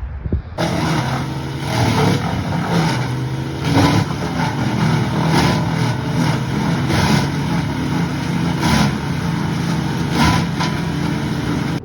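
Morbark BVR 13 wood chipper running under load while it chips a log: a steady engine drone broken by loud, irregular cracks of wood being cut and thrown. It starts abruptly just after the beginning.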